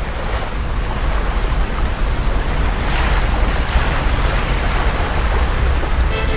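Rushing sea-and-wind noise with a deep rumble underneath, like surf, swelling in surges as it grows louder. Music comes in at the very end.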